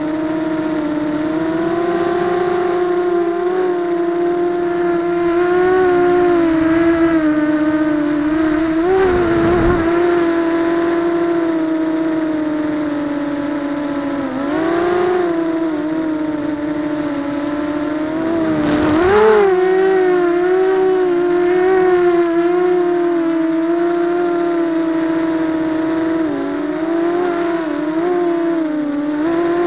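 ZMR250 quadcopter's brushless motors and propellers whining steadily, heard through the onboard 808 #16 keychain camera's microphone. The pitch wavers and dips and swoops a few times as the throttle changes.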